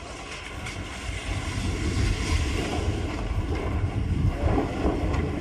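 A multi-storey concrete building toppling over after its ground-floor columns have been knocked out: a low rumble that swells from about a second and a half in and is loudest near the end, with wind buffeting the microphone.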